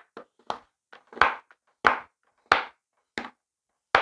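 Kitchen knife chopping a slab of chocolate on a wooden cutting board: a run of sharp, uneven chops, roughly one every half second.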